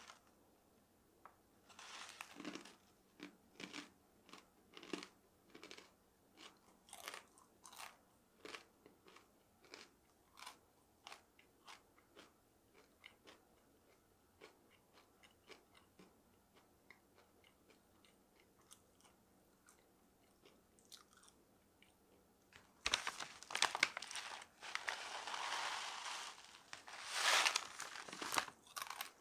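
A person chewing crunchy dried food, a steady run of crisp crunches with the mouth close to the microphone. Near the end, several seconds of loud crinkling of the paper-and-plastic pouch as it is handled.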